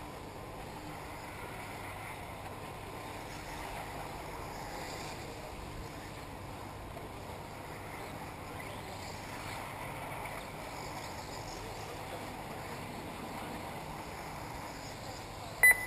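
1/10-scale 4WD RC buggies racing at a distance, their motors faintly whining up and down over a steady wash of wind noise. A short, loud beep sounds near the end.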